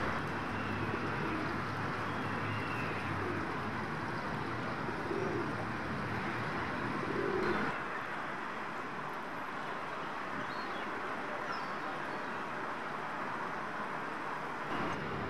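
Pigeons cooing a few times over a steady hum of city background noise. A low rumble in the background drops away about halfway through, and a couple of faint bird chirps follow.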